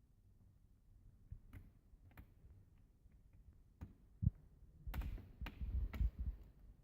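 Scattered light clicks and taps of hands and a small screwdriver working on a Chromebook's plastic casing, with louder clicks and low thumps in the second half.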